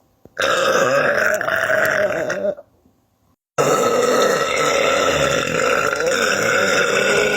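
A person burping: one long burp of about two seconds, then after a second of silence a second, longer burp of about four seconds.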